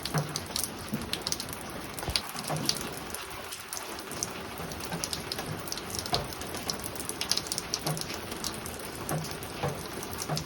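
Spring rain falling steadily on a roof, an even hiss with many separate drops tapping and plinking at irregular moments.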